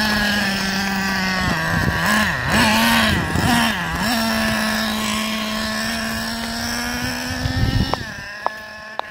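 Traxxas Revo 3.3 nitro RC monster truck's small two-stroke glow engine screaming at high revs on a flat-out speed run. Its pitch dips and climbs a few times in the first seconds as the throttle is worked, then holds high and steady, and fades near the end as the truck gets far away. A couple of sharp clicks sound near the end.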